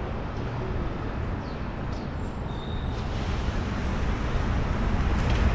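Riding a bicycle along a city street: a steady low rumble of road and wind noise with light traffic, a few faint clicks, and a brief high squeak about halfway through. It grows a little louder near the end.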